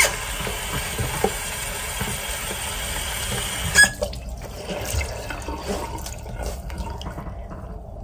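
Bathroom sink tap running for about four seconds, opened with a click and shut off with another click, then softer dripping and small scattered sounds at the sink.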